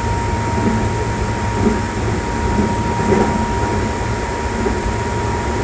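Keikyu 600 series electric train running at speed: a steady rumble with a constant high whine and occasional low thuds from the wheels.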